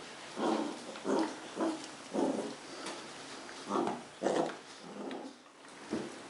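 Two Cardigan Welsh Corgi puppies play-fighting, giving short growls in quick succession, about one every half second, with a brief lull near the end.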